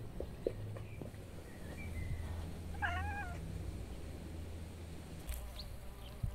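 Domestic cat meowing once, a short wavering meow about three seconds in.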